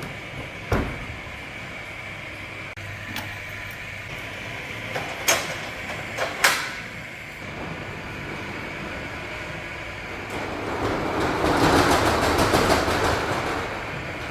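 Work sounds while opening a small food kitchen: a steady machine hum with a few sharp knocks, then a louder rushing noise that swells from about ten seconds in.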